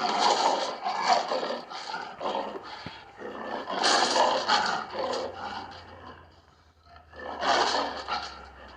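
Leopard calling: three loud, rough bouts of growls, each a second or two long and a few seconds apart, with quieter growls between them.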